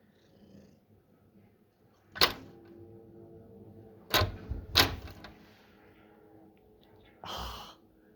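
Three sharp knocks on something hard, the first about two seconds in and the other two close together a couple of seconds later; the first leaves a brief ringing hum. Near the end comes a short rush of noise.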